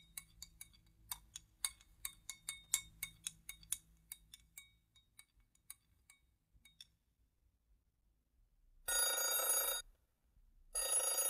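Rotary desk telephone's bell ringing twice, each ring about a second long, near the end. Before that, a run of light clinks that thin out and stop, a spoon clinking in a glass jar.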